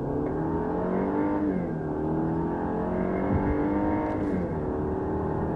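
Mercedes-Benz C200 (W205) turbocharged four-cylinder engine pulling under acceleration on its stock exhaust. Its pitch climbs steadily and drops back twice, about one and a half seconds in and again about four seconds in, as the car shifts up through the gears.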